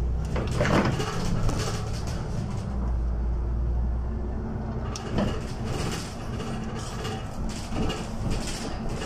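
City bus interior with the engine running in a low drone that fades and comes back, then knocks and clatter from about five seconds in.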